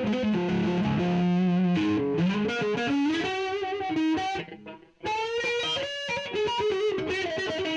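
Distorted electric guitar played through a Donner Jet Convolution flanger pedal. The single notes and chords carry the flanger's wavering, sweeping sound. The playing breaks off briefly about four and a half seconds in, then starts again.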